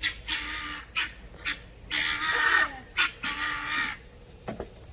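Chickens calling: three drawn-out pitched calls about a second apart, with a few short clicks between them.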